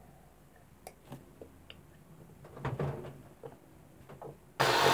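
A boy gulps a glass of salt-and-vinegar water: faint swallows and small clicks of the glass, then near the end a sudden loud, harsh gasp of breath at the foul taste.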